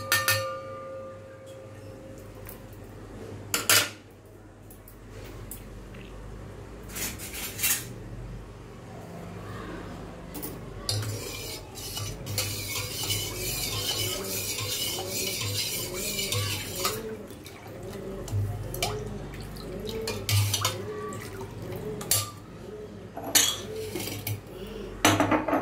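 Steel spoon stirring water and chopped mint in a stainless steel pot, clinking against the pot now and then, with a stretch of swishing water in the middle.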